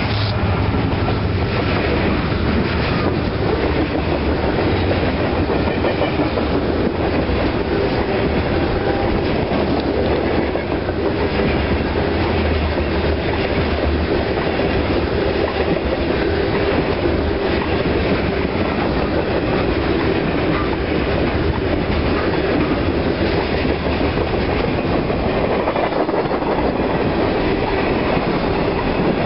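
Freight train cars rolling past close by, covered hoppers and then tank cars: a loud, steady rolling noise of steel wheels running on the rails.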